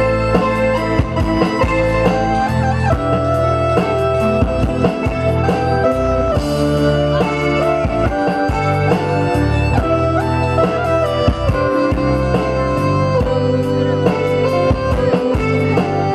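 Live band playing an instrumental passage of a Khmer pop song: an electronic keyboard melody over electric guitar and a steady drum-kit beat, with a cymbal crash about six seconds in.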